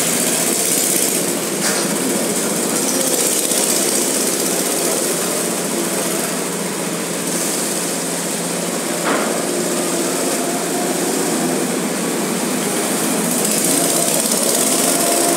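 Small go-kart engines buzzing steadily as karts lap the track, louder at the start and again near the end as karts pass close by. A short click about nine seconds in.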